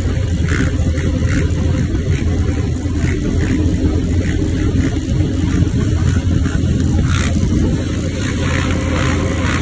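Motor vehicles moving at speed: a steady low rumble of engines and road noise.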